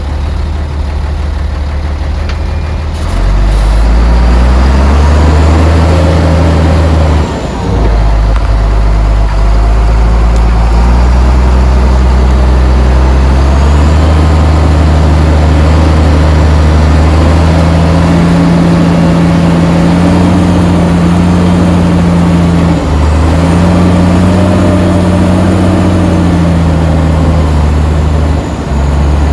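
Heavy diesel engine of earthmoving machinery working hard, its revs rising about four seconds in and then shifting up and down as the machine is loaded, with brief dips in revs twice.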